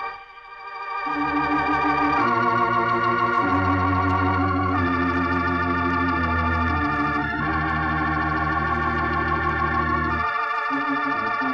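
Organ music bridge: sustained, wavering chords that swell in over the first second and move to a new chord every two to three seconds over a deep bass line, which drops out about ten seconds in. It closes the scene as the story's final dramatic music cue.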